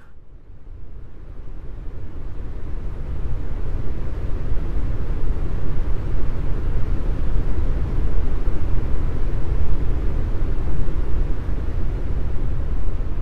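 A deep, pitchless rumble that fades in over the first few seconds and then holds steady.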